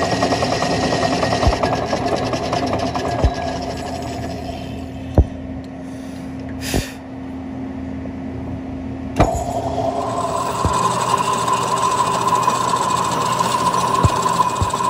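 Metal lathe running with a threaded truck axle shaft turning in its chuck, with a few sharp clicks. About ten seconds in, a flat hand file is pressed against the spinning steel shaft and adds a steady rasping hiss.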